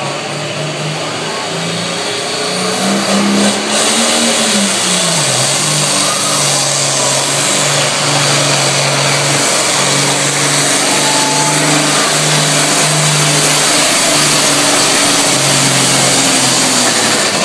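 Turbocharged diesel Pro Stock pulling tractor engine running hard under load as it drags the weight-transfer sled down the track. The note climbs and dips about four to five seconds in, then holds steady with a loud hiss above it.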